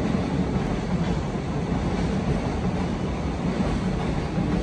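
Steady low rumble with a hiss above it, unchanging throughout.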